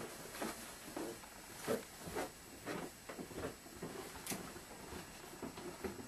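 Faint footsteps and small knocks at about two a second, with light rustling, as someone walks out of the room.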